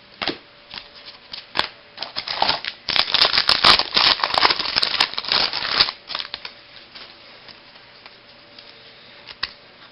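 Baseball card packs and cards being handled: a few light clicks, then about three seconds of dense crinkling and rustling, then scattered clicks again.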